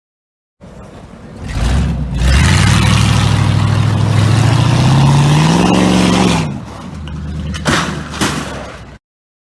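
A motor vehicle's engine revving up, its pitch climbing steadily for about four seconds and then dropping back, under a loud rushing noise that eases after about six seconds. The sound cuts in and out abruptly.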